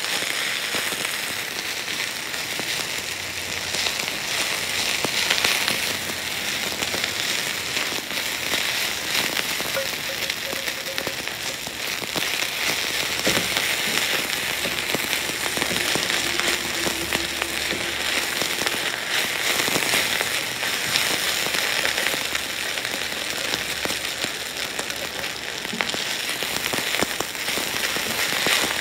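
Bite-sized chicken pieces sizzling steadily in a nonstick frying pan as they are stirred with a spatula; the chicken is cooked through and browning.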